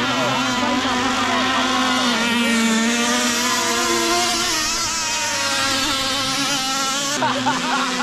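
Gasoline-powered RC powerboat with a small converted chainsaw engine running on the water: a steady, buzzing engine note that wavers slightly in pitch.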